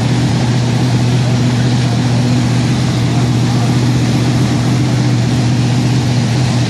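Top Fuel dragster's supercharged V8 running at a loud, steady idle, holding one even pitch without revving.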